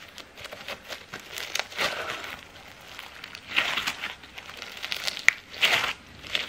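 Hands squeezing and kneading crunchy slime (floam) packed with polystyrene foam beads, which crunch and crackle in irregular bursts. The bursts are strongest about two seconds in, around four seconds in, and near five and a half seconds in, with one sharp click among them.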